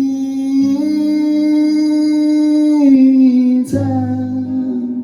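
A singer holding one long sung note that steps down in pitch near the end, with an acoustic guitar strummed near the end.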